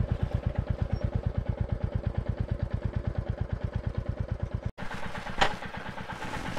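Royal Enfield Classic 350's single-cylinder engine thumping steadily under way, about ten beats a second. Just before five seconds in it breaks off abruptly to a quieter, less even engine sound, with one sharp clack half a second later.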